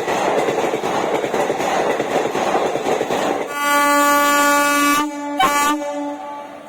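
WAP-4 electric locomotive horn sounding over the running noise of the departing train. For the first few seconds there is only train rumble. Then comes a long horn blast, broken by a short toot, and it ends shortly before the close.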